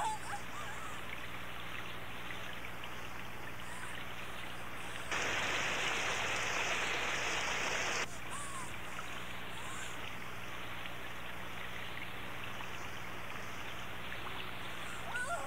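Steady rain-like hiss from an audio-drama sound effect, swelling louder for about three seconds in the middle with an abrupt start and stop. A low steady hum from the cassette playback sits beneath it.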